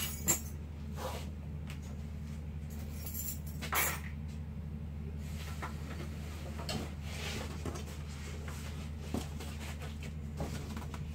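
Cardboard being handled and slid about, with a few short scrapes and rustles, the loudest about four seconds in, over a steady low hum.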